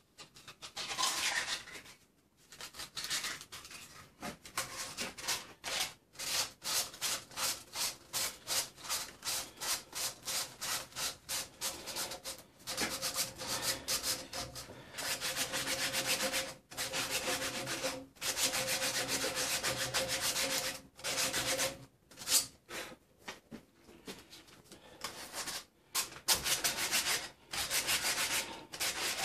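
Abrasive rubbed back and forth by hand inside the steel eye of a Land Rover Defender front radius arm, cleaning out the bore for a new bush: quick rasping strokes about two a second, with a faint ringing tone through the middle stretch.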